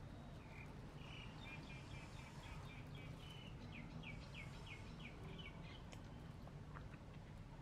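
A bird chirping in a run of short, quick, high notes that stops about six seconds in, faint over a low background noise.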